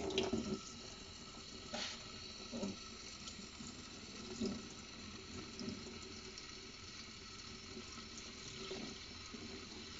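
Kitchen faucet spray running into a stainless steel sink and over a wet puppy as the shampoo is rinsed out of its coat, with a few soft splashes as hands work the fur.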